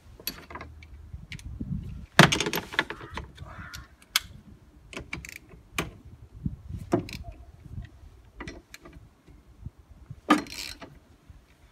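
Metal clicks and clinks of a socket wrench working loose a wiper arm's retaining nut, with a louder clatter about two seconds in and again near the end.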